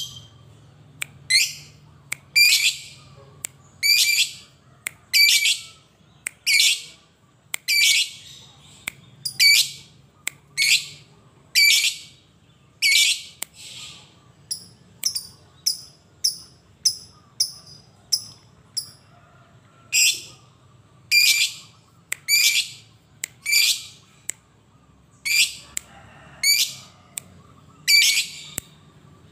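A lovebird calling: shrill, piercing calls one after another, roughly one a second, with a run of shorter, higher chips about halfway through.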